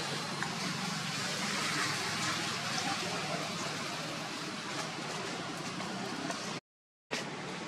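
Steady outdoor background noise, an even hiss with a few faint clicks, broken by a half-second gap of silence near the end.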